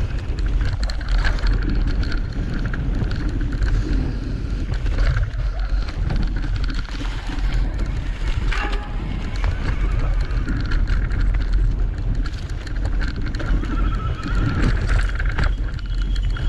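Electric mountain bike being ridden down a trail: steady wind rumble on the microphone and tyre noise over the dirt, with frequent rattles and knocks from the bike.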